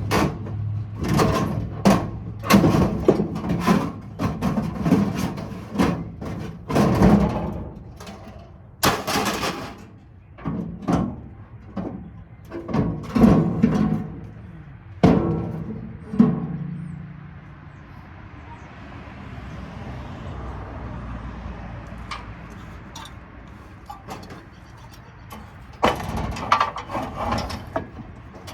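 Metal parts of parking lot light fixtures clanking and banging as they are handled and taken apart. There are many irregular knocks, some of them ringing. They thin out for a while, and a few more come near the end.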